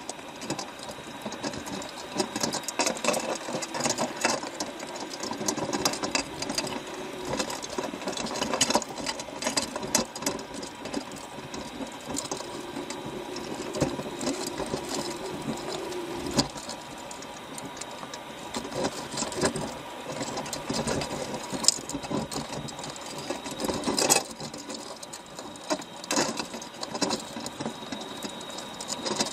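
Fishing boat's engine and deck machinery running with a rapid, continuous mechanical clatter. Scattered knocks and bangs come as crab pot gear is handled, the loudest near the end.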